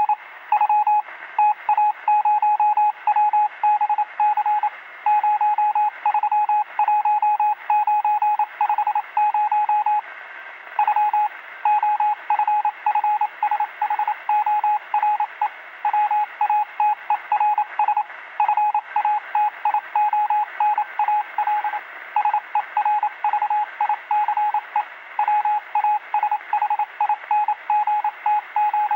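Morse code sent as a single beeping tone, keyed in quick groups of short and long beeps with brief gaps, over a steady radio-like static hiss.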